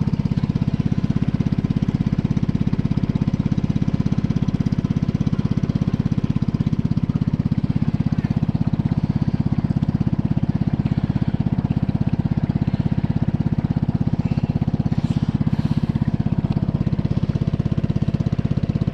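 A small river boat's engine running steadily under way, with a fast, even pulsing throb.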